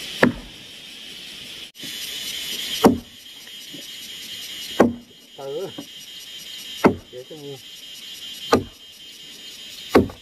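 Chopping blows, a sharp knock about every two seconds, over a steady high buzz of insects.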